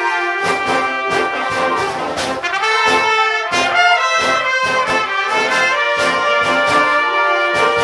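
Trumpet playing a fast passage of quick, separate notes that change pitch rapidly.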